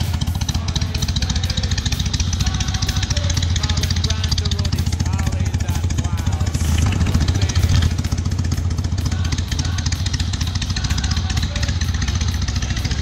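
1973 Harley-Davidson Sportster XLH 1000 Ironhead's air-cooled V-twin idling steadily on straight-cut chrome mufflers, briefly louder about seven seconds in. It is running for the first time after renovation and a winter layup.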